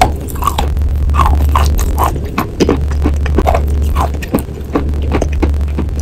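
A block of eating chalk being bitten and chewed close to the microphone: repeated crunches and scraping bites in an uneven rhythm, over a steady low hum.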